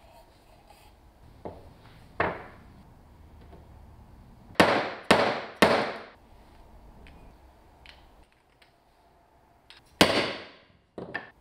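Hammer blows at an uneven pace: two lighter knocks, then three hard blows about half a second apart, another hard blow some seconds later, and two quick lighter knocks near the end.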